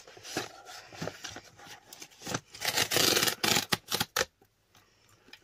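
Cardboard postal box's tear strip being ripped open: a loud rasping tear of cardboard lasting about two seconds, starting a little over two seconds in, after a few light knocks from handling the box.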